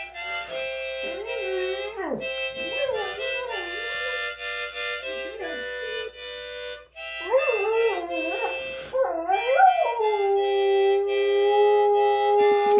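Harmonica playing chords while a large dog howls along with it, its voice wavering and gliding up and down in whimpering howls, then settling into one long, steady howl near the end.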